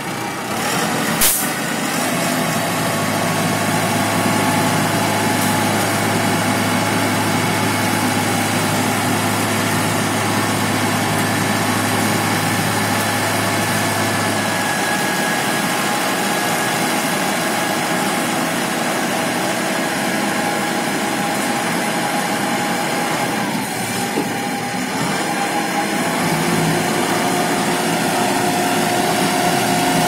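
Diesel engine of an Aimix AS2.6 self-loading concrete mixer running steadily, with a sharp click about a second in and a low hum under it for the first half.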